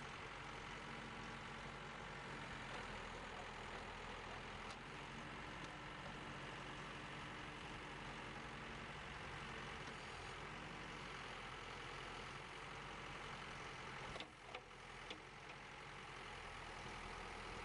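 Case 590 Turbo backhoe's 3.9-liter four-cylinder turbocharged diesel engine idling steadily and faintly, with a brief dip in the sound about fourteen seconds in.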